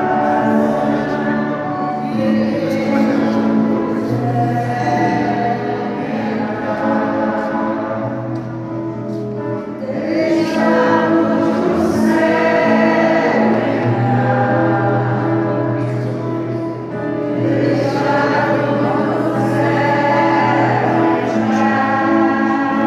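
A group of voices singing a hymn, in long held notes over a steady low accompaniment.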